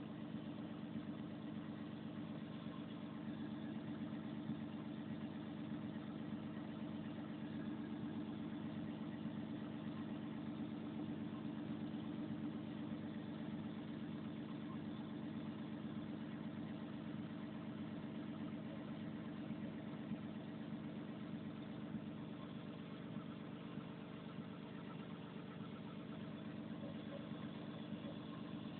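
Volvo 360 excavator's diesel engine idling steadily, heard close up from the engine compartment.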